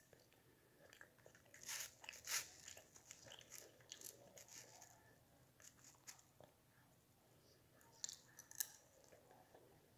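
Faint chewing and eating sounds of a child eating chicken with a spoon, with a few scattered sharp clicks, the loudest about two seconds in and again near the end.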